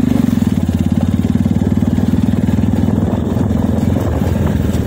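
Motorcycle engine running at a steady speed while riding, with a fast, even exhaust pulse.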